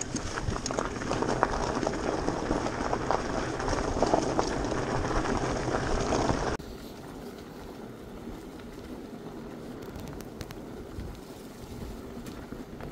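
Tyres of an electric mountain bike rolling over a rough, stony dirt track, with frequent small knocks and rattles from the bike. About six and a half seconds in, the sound cuts off abruptly to quieter rolling noise with occasional clicks.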